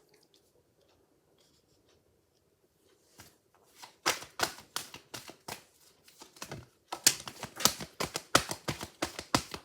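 A deck of oracle cards being shuffled by hand: after a near-quiet start, a run of quick papery slaps and clicks begins about four seconds in and grows busier toward the end.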